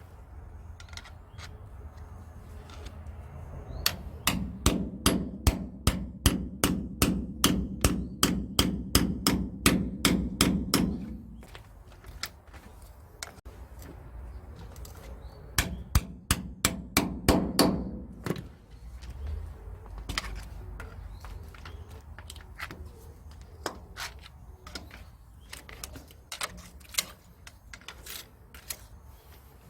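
Hammer blows on steel during truck leaf-spring and centre-bushing work. A quick run of about twenty strikes comes at about three a second, then a pause, then a shorter run of about eight. Scattered single blows follow.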